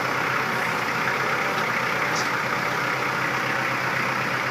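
Kubota L4240HST-3 tractor's diesel engine running steadily at low speed.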